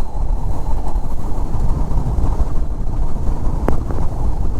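Bass boat running across the lake, with a loud steady rumble of the motor and hull and wind buffeting the microphone. A short sharp knock about three and a half seconds in.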